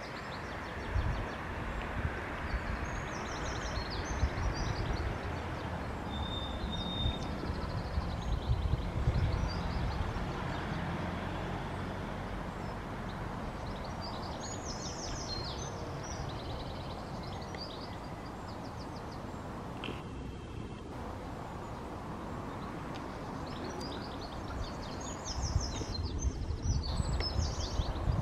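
Small birds singing short, high trilling phrases on and off over a steady outdoor background noise, with low rumbles near the start and again near the end.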